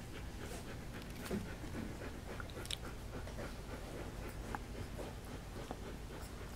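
Three-week-old puppies suckling from their mother dog: soft, scattered smacking and sucking clicks with a couple of faint short squeaks, over a low steady hum.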